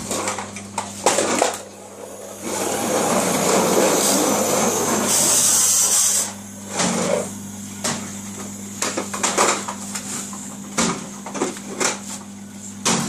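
Plastic toy trucks pushed across a laminate floor: a steady rolling rumble of their wheels for a few seconds, then a run of plastic clatters and knocks. A faint low hum sits underneath.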